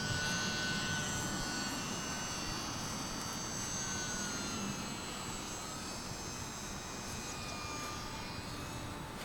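Brushless electric motor and propeller of an E-flite UMX P-47 RC plane whining in flight. The pitch slowly slides lower, rises briefly about four seconds in, then sinks again.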